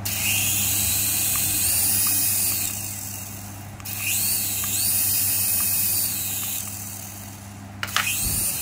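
Toy RC helicopter's small electric rotor motors whirring while it is held in the hand, in two spells of about four seconds, the pitch rising and falling as the throttle changes.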